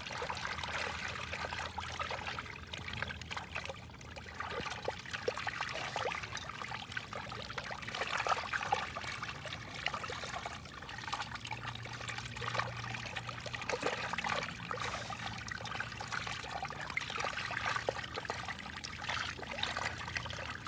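Water trickling steadily, broken by many small irregular splashes and plops at the surface as fish feed. A low steady hum runs underneath and grows stronger for a few seconds near the middle.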